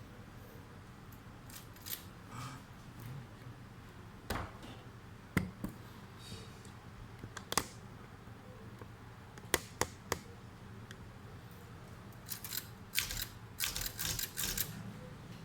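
Handling noises from unpacking an old manual typewriter: scattered sharp clicks and snips, then a quick run of clicks near the end.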